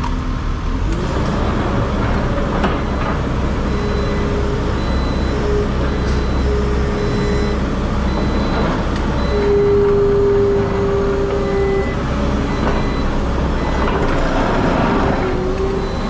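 New Holland L170 skid steer's diesel engine running steadily. A steady, higher whine comes and goes several times over it, the longest lasting about two seconds just before the middle.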